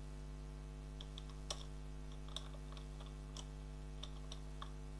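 Computer keyboard keys clicking in scattered, irregular keystrokes as commands are typed, over a steady low electrical hum.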